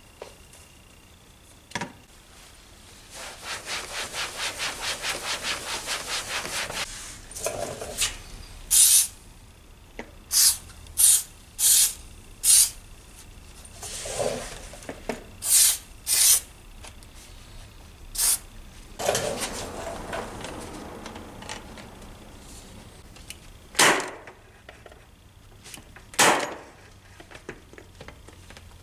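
Scrubbing on the worn, fraying moped seat in quick, even strokes, about six a second. Then comes a string of short, sharp hisses, and more scrubbing.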